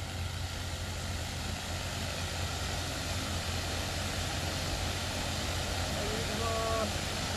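An engine idles with a steady low hum. About six seconds in, faint short whirring tones begin as a large multirotor drone's motors start to spin up for takeoff.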